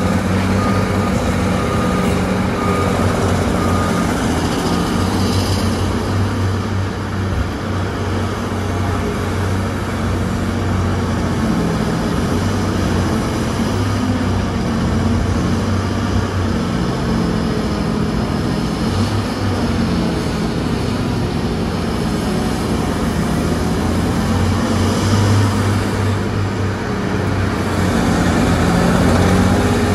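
Terex RH170 front shovel mining excavator working, its engines running in a steady low drone that swells and eases as the shovel digs and swings.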